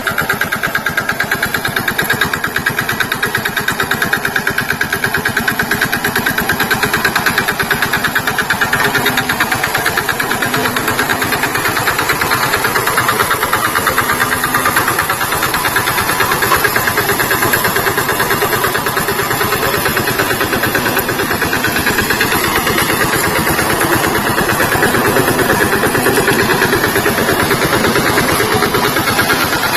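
VST Shakti tractor's diesel engine running steadily, with a rapid, even firing beat.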